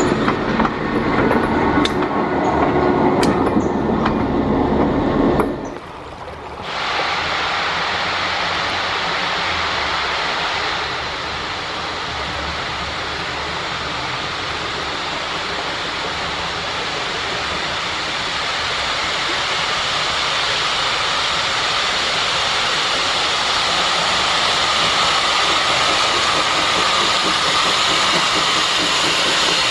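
Passenger coaches and an open excursion car rolling past on the rails, with sharp wheel clicks, for about five seconds. Then, after a sudden drop, a steady rushing noise sets in and slowly grows louder.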